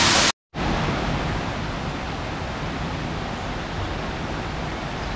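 Waterfall rushing over a stone weir, cut off by a short break of silence; then the steady, somewhat quieter rush of a stream flowing over stones.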